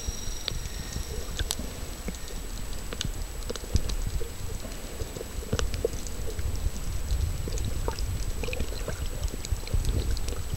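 Underwater sound picked up by a submerged camera: a steady low rumble of moving water with many scattered sharp clicks and crackles.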